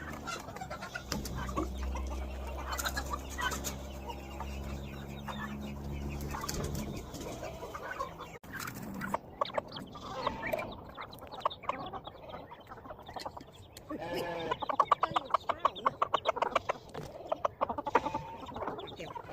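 Chickens clucking, with a steady low hum under the first several seconds that stops about seven seconds in. Near the end the clucking turns busier and louder.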